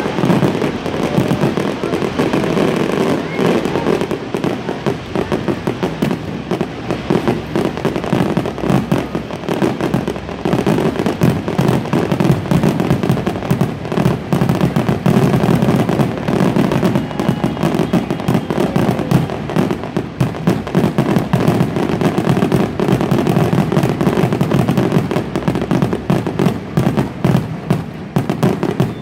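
Fireworks grand finale: a rapid, unbroken barrage of aerial shell bursts with no pause between them.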